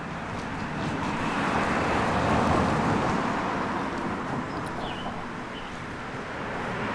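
Road traffic: a vehicle's passing noise swells up and fades, then a second one comes on near the end.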